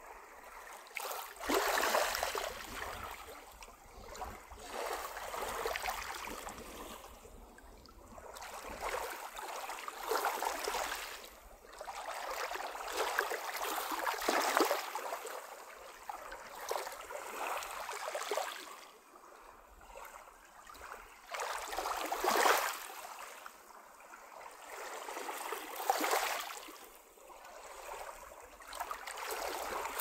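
Small waves of a calm sea lapping and washing onto the beach, swelling and fading every few seconds.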